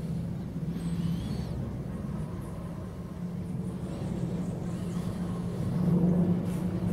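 Airliner flying high overhead: a steady low rumble with a faint hum in it, swelling a little near the end.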